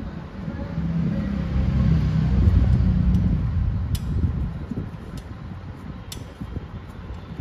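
A motor vehicle passing: a low engine rumble that swells to its loudest about two and a half seconds in and then fades, followed by a few sharp clicks.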